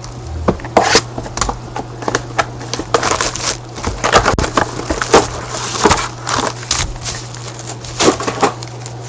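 Foil-wrapped trading card packs being handled and shuffled, wrappers crinkling and crackling in irregular bursts, over a steady low electrical hum.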